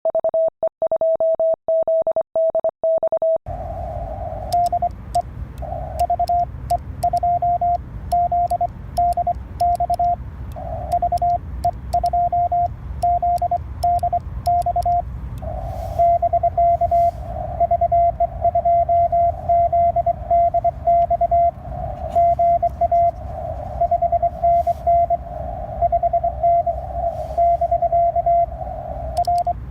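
Morse code on an Icom IC-705 transceiver. For about the first three and a half seconds a clean keyed sidetone beeps with dead silence between elements. Then a received CW signal is keyed on and off over steady band noise.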